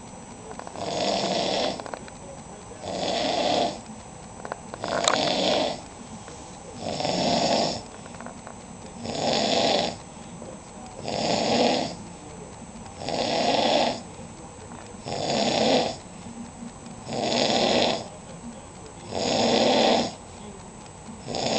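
A person snoring loudly, one harsh, rasping snore about every two seconds, each lasting about a second, in a steady rhythm.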